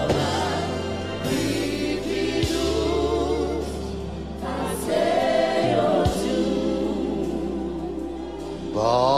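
A gospel choir singing a worship song in long held notes over steady instrumental backing.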